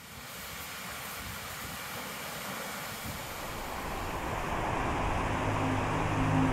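Steady rushing wind that slowly grows louder. A low, sustained music drone fades in about five seconds in.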